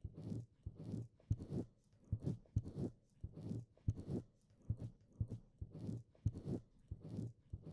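Wet licking and mouth sounds right on a binaural microphone's ear: irregular wet smacks and clicks, two or three a second.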